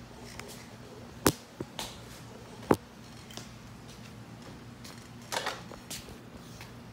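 Sharp clicks and knocks over a low steady hum. The two loudest come about a second and a half apart, and a quicker cluster of softer ones follows near the end.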